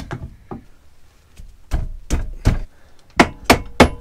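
Hammer knocking the greased swing arm pivot shaft through on a Rieju Marathon 125, about nine sharp knocks. They are spaced out at first, then come quicker and louder in the last second.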